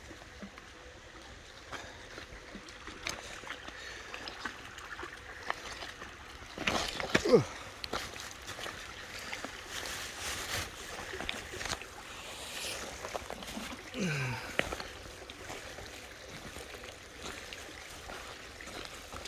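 Shallow creek water trickling and splashing, with splashy steps and a few knocks as someone wades through it.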